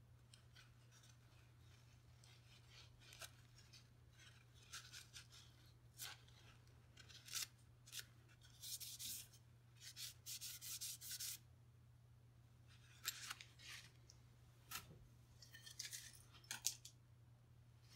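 Faint scraping, rubbing and small clicks of small metal rifle parts being handled and worked by hand, in short irregular bursts over a steady low hum.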